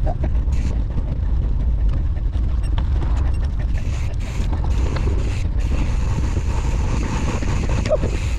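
Wind rumbling on the microphone while riding a gravel bike along a dirt trail, with scattered clicks and rattles from the bike.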